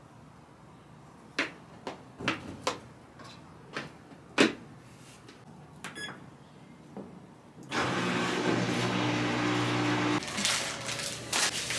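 A handful of clicks and knocks as a Tide Pods tub lid is handled and buttons on a Crosley washing machine's control panel are pressed. Nearly eight seconds in, the washer starts its cycle with a steady hum and hiss.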